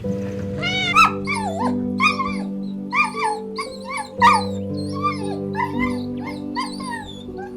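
Calm background music of sustained low notes, over a run of about a dozen short, high, wavering animal cries, one or two a second.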